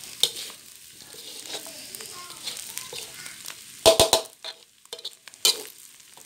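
Spatula stirring and scraping a dry mixture of fried grated coconut and beef around a wok, with a light sizzle from the near-dry mix over medium-low heat. About four seconds in comes a cluster of louder scrapes and knocks against the pan, and another a second and a half later.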